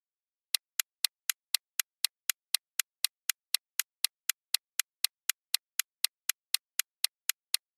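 Countdown timer sound effect: sharp clock ticks at a steady four or so a second, starting about half a second in.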